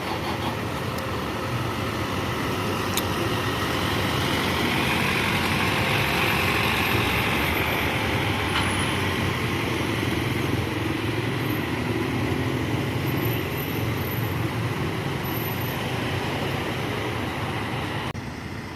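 Bus engine running close by amid steady traffic noise, growing louder over the first few seconds and easing a little near the end.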